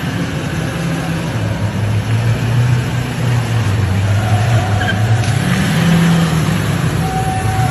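Engines of heavy-duty GMC and Ford pickup trucks running at low speed as they creep forward under load, a steady low hum that wavers slightly.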